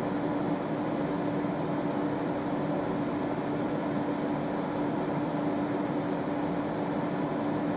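Steady background hum and hiss with a constant low tone, unchanging throughout, with no distinct events standing out.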